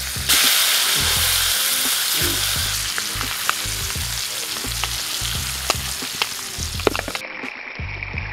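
Whole lemon-stuffed trout laid into hot butter in a frying pan: a loud sizzle bursts up as the fish go in, then eases to a steady fry with scattered small pops.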